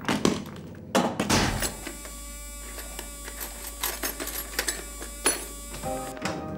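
A couple of rustling, clattering bursts, then a steady low electrical hum with scattered small clicks and clinks of tools and parts being handled in a metal toolbox.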